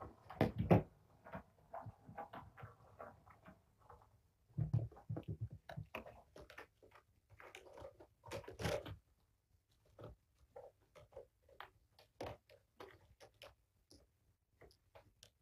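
Kittens scampering and pouncing: scattered soft thumps of paws and bodies and scrabbling claws on carpet and cat furniture, in flurries about half a second in, near five seconds and near nine seconds, then sparser taps.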